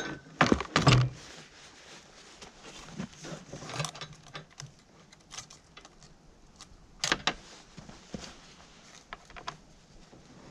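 Irregular clicks, clinks and knocks of gloved hands working on a chainsaw whose chain has come off its bar. The loudest knocks come in a quick cluster about half a second to a second in, with single clicks scattered after.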